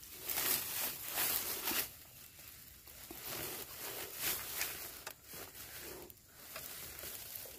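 Irregular rustling and crackling, as of hands and a trap moving through dry grass and brush, strongest in the first two seconds and fainter after.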